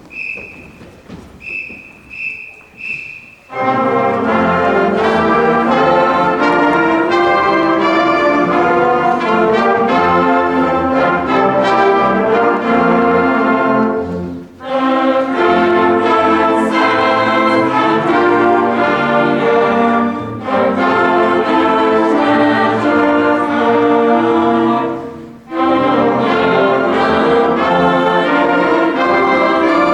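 A few short high tones, then a full high school marching band comes in loudly about three and a half seconds in, brass playing sustained chords over drums. The music breaks off briefly about halfway through and again near the end, between phrases.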